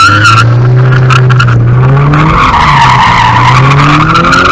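Rally car engine, heard from inside the cabin, revving up as the car accelerates out of a slow turn, with one upshift about two and a half seconds in before it climbs again. Tyres squeal through the middle of the turn.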